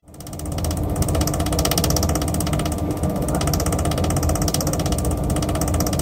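LG refrigerator's mechanical-compartment fan rattling as it catches on an obstruction: a loud, fast, even rattle over a steady hum, starting suddenly.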